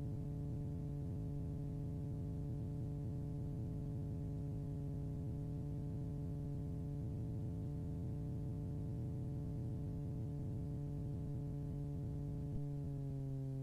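Super Petrel's Rotax engine and constant-speed propeller droning steadily in cruise climb, heard in the cockpit as a steady hum of several even tones. Near the end the pitch steps down slightly as the propeller pitch is adjusted to bring the engine down to about 4,800 RPM.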